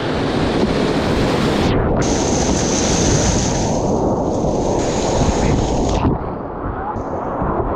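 Rushing whitewater on an artificial whitewater course, splashing and buffeting the microphone of a kayaker's camera, loud throughout. The sound turns duller for a moment about six seconds in.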